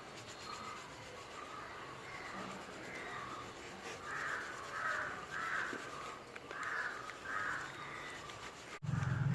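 A crow cawing, a run of short harsh calls about half a second apart that grow louder partway through. A low hum comes in abruptly near the end.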